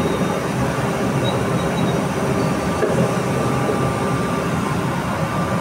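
Steady rumbling noise of commercial gas burners firing under large aluminium pots of boiling sugar syrup.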